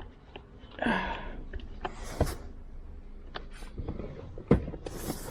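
Scattered light clicks and knocks from hands and tools working on steering column parts and connectors, with a sharper knock about four and a half seconds in. A short breathy voice sound comes about a second in.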